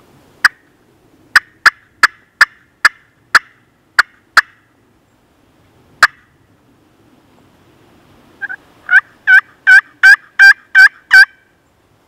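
Loud turkey calling: a string of sharp, single clucking notes, then a run of about eight quick yelps near the end.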